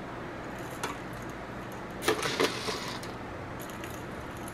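Peppercorns clattering as a small measuring spoon scoops them from a jar and tips them into a pepper grinder: one click about a second in, a short cluster of rattling clicks around two seconds in, and faint ticks near the end.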